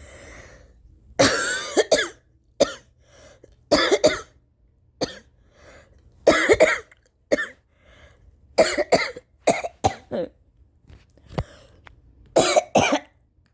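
A woman's violent coughing fits, the coughs mostly uncovered: about a dozen harsh coughs in short bursts, some coming in quick pairs, with short pauses between. She puts the fits down to allergies set off by heavy rain.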